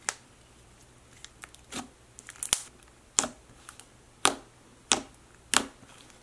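White butter slime pressed and poked with fingertips, giving short, sharp sticky pops and squelches about once every half-second to a second.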